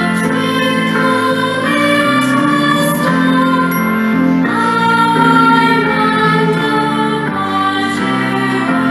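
Music: sustained chords that shift every second or so under a held melody line.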